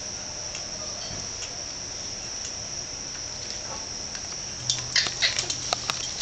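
Insects keep up a steady high-pitched drone. From about two-thirds of the way in, a quick run of sharp clicks and rustles rises over it, louder than the drone.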